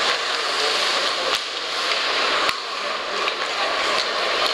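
Hockey-arena crowd noise: a steady din of spectators with the hiss of play on the ice. It drops and changes abruptly a couple of times, with sharp clicks at the breaks.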